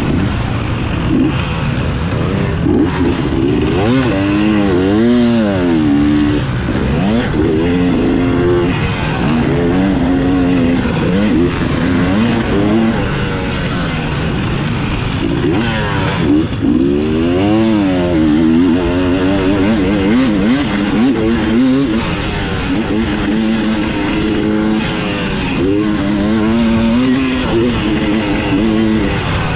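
Motocross dirt bike engine heard from on board while racing, its pitch climbing and dropping again and again as the rider accelerates, shifts and backs off for turns.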